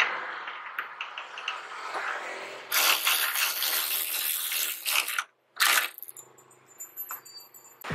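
Cordless electric ratchet wrench driving the 10 mm bolt on a tailgate gas strut's mount: rattling and scraping of the tool and socket on the bolt, then the ratchet motor runs steadily for about two and a half seconds and gives one short burst near the end.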